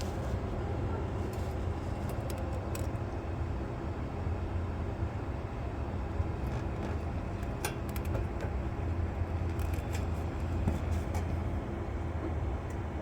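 A steady low hum, like a running engine or machine, with a few light clicks scattered through it.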